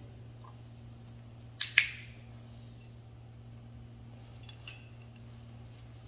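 Dog nibbling at a treat held in a plastic-buckled harness: two sharp clicks close together about a second and a half in, then a couple of fainter ticks later, over a steady low hum.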